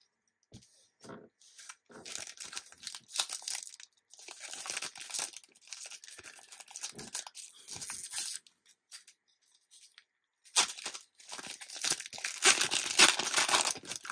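A trading card booster pack's wrapper being torn open and crinkled by hand, in two spells of tearing and rustling with a short pause between; the second spell, near the end, is the loudest.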